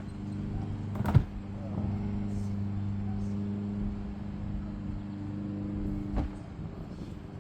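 Two sharp plastic knocks, the louder about a second in and a second near the end, as the shark's flexible plastic body panels are handled and their tabs pushed together. Under them runs a steady low mechanical hum.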